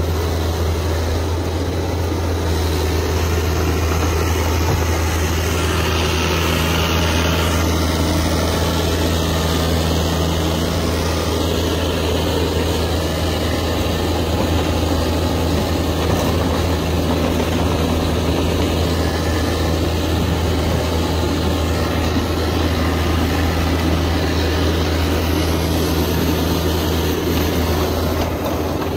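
Caterpillar 305.5E2 mini excavator's diesel engine running at a steady pitch while it digs and grades dirt.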